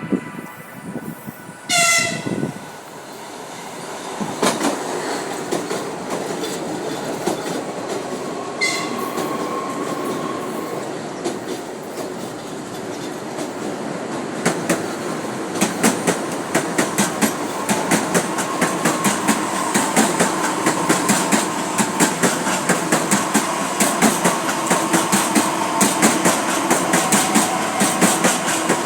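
ÉG2Tv Ivolga 4.0 electric multiple unit sounding a short horn blast about two seconds in and a shorter, fainter one a few seconds later. Then its rumble builds as the wheels run over the rail joints, in an ever-denser clickety-clack.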